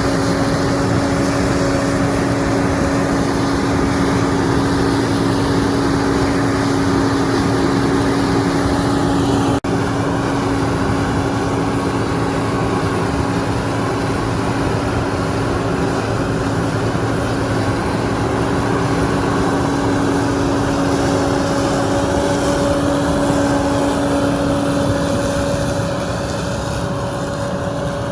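Small camera drone's propellers humming steadily in flight.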